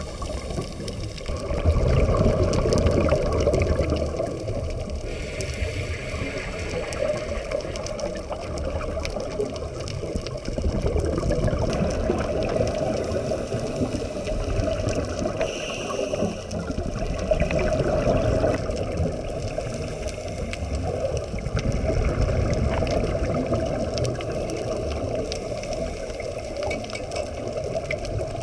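Underwater sound of scuba divers breathing through their regulators: a muffled, bubbling rush of exhaled air that swells and fades every few seconds.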